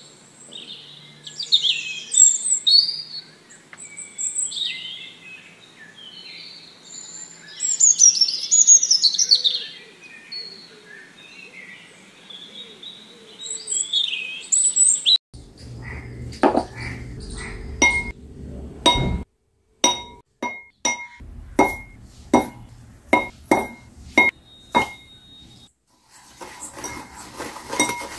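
Birds chirping for the first half. Then a run of about a dozen sharp clinks, each ringing briefly at the same bright pitch. Near the end, a metal whisk starts beating in a glass bowl.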